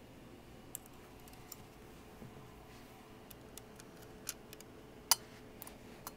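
Scattered light clicks and taps of a scale-model garbage truck being handled by hand, with one sharp, louder click about five seconds in.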